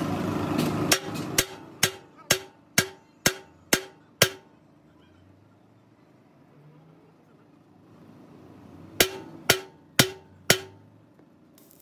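Hammer blows on steel: eight sharp strikes about two a second, each with a short metallic ring, then a pause and four more strikes at the same pace.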